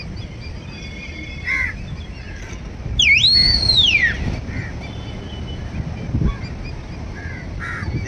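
A man's loud whistle about three seconds in, lasting about a second: it dips, rises, holds and then falls in pitch. It is his call to bring the kites down to be fed. Crows caw now and then in the background.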